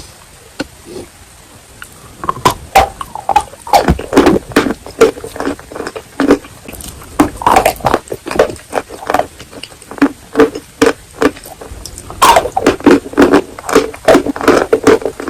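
Close-miked chewing of wet chalk with clay paste: a quick run of sharp crunches and wet mouth clicks that starts about two seconds in, eases briefly, then picks up again near the end.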